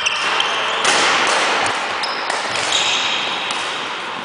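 Badminton practice in a sports hall: a steady hiss of hall noise, with a couple of sharp racket-on-shuttlecock hits and the high squeak of court shoes on the floor a little past the middle.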